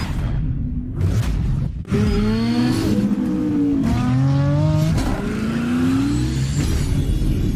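Car engine revving under hard acceleration, its pitch climbing, dropping and climbing again as it works up through the revs.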